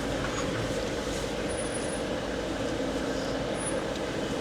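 Off-road vehicle driving slowly along a rocky trail, its engine running at a steady low hum with continuous road rumble.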